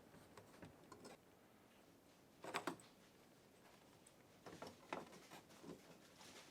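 Faint plastic clicks and rattles of an LED headlight bulb and its plug being worked back into the headlight housing, with a cluster of clicks about two and a half seconds in and a few more around five seconds.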